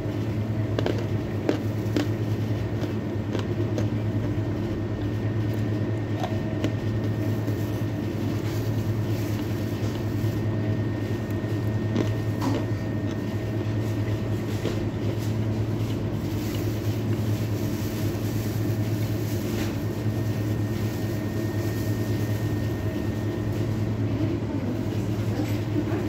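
Steady loud hum of a kitchen ventilation fan, with crisp crunches scattered through as a dry white chalky lump is bitten and chewed, most of them near the start and around the middle.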